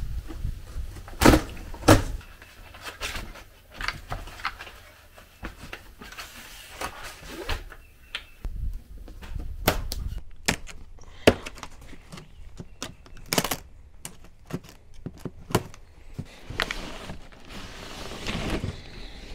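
Large cardboard shipping box being opened and handled: packing tape pulled off and flaps folded back, with rustling and many scattered knocks and clicks, the loudest about one and two seconds in.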